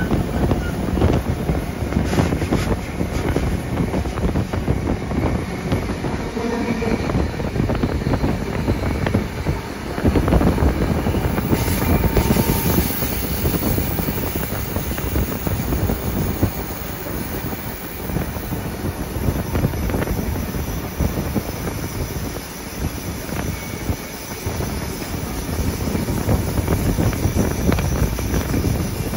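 Train hauled by steam locomotive 3801 running, heard from on board: a steady rumble and clatter of the moving train with wind buffeting the microphone, a little louder about ten seconds in.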